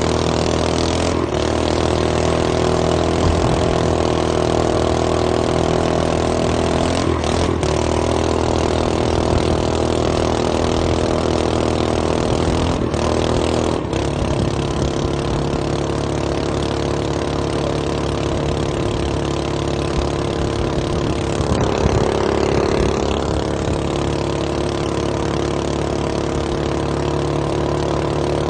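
Small 7 hp long-tail mud motor engine, stage 1 modified, running hard and steadily. The revs dip briefly a few times in the first half, then hold a little lower for the rest.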